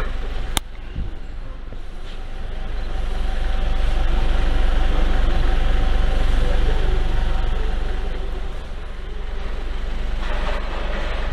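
Daihatsu Mira Avy's EF-VE three-cylinder engine running, with a steady low exhaust rumble through its muffler that swells a little in the middle and eases near the end. A single sharp click sounds about half a second in.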